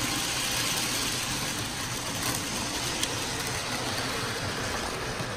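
Hornby OO scale Murdoch model locomotive running on the track: a steady whirring rumble of its motor and wheels that cuts off abruptly at the end.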